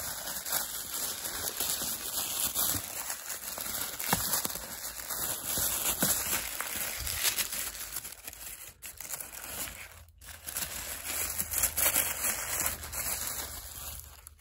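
Packaging crinkling and rustling as an advent calendar compartment is opened and the toy inside is unwrapped, with many small crackles and a brief pause about ten seconds in.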